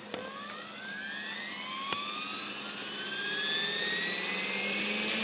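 RC helicopter spooling up: a whine that rises steadily in pitch and grows louder, over a steady low hum. Two sharp clicks, one near the start and one about two seconds in.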